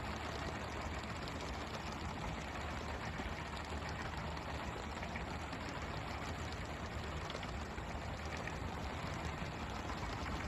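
Steady hiss and patter of water spray from a pole-and-line fishing boat's sprinkler jets, which play over the sea to mimic a baitfish school, over the fishing boat's engine running steadily.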